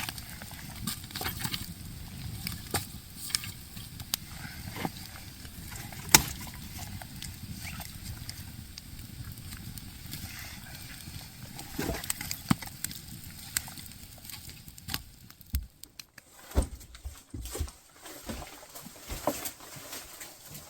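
Irregular knocks and clicks over a steady rustling background, with one sharp knock about six seconds in.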